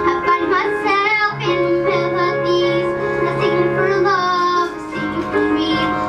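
A girl singing a pop ballad over sustained instrumental accompaniment, her voice wavering on held notes, with a short breath pause just before the chord changes near the end.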